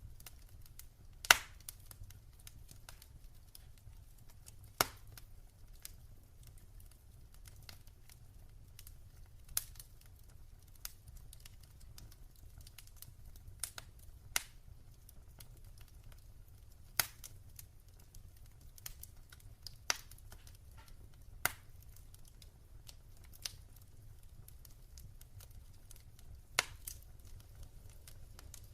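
Wood fire burning in a fireplace, crackling with scattered sharp pops, the loudest about a second in, over a faint low rumble.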